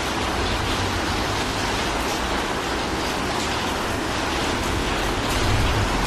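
Steady rain falling on a wet tiled passage: an even hiss with faint scattered drop ticks.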